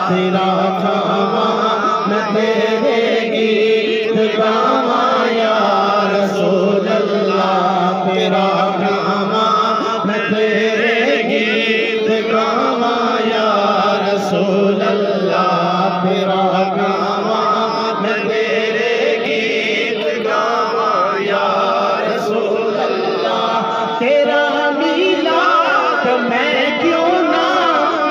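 A man singing a naat, an Urdu/Punjabi devotional song in praise of the Prophet, into a microphone, in long drawn-out melodic phrases without a break.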